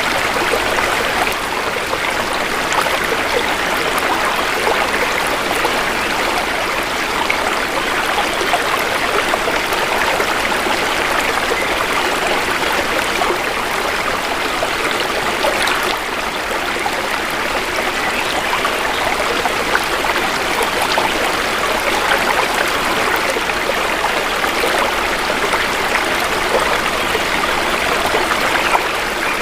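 Shallow river water flowing, a steady even babbling rush with no breaks.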